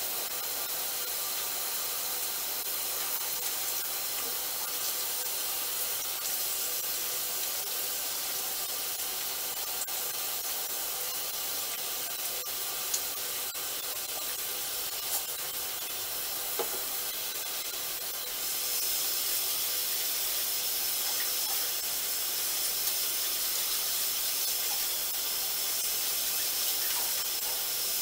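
Bathroom sink faucet running steadily into the basin while makeup sponges are squeezed and rubbed under the stream. The water sound steps up, louder and brighter, about two-thirds of the way in.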